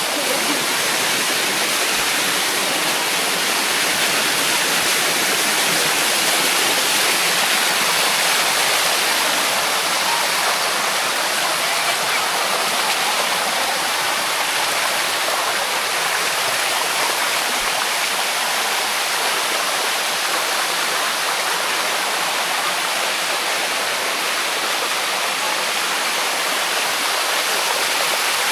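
Water cascading over the limestone rock of a waterfall, a steady rushing sound.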